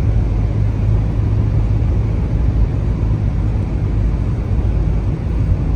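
Boat engine running steadily under way: a constant low rumble with an even rushing noise over it.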